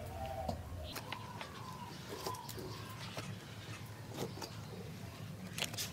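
Birds calling in the background, faint pitched calls that bend up and down, with a few light knocks near the end as dried cow-dung fuel cakes are set into a clay stove.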